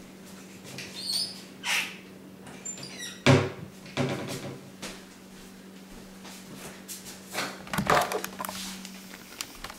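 Household knocks and bumps of someone moving about: a handful of short knocks and rustles, the sharpest about three seconds in, with a cupboard or door being handled. A steady low hum runs underneath.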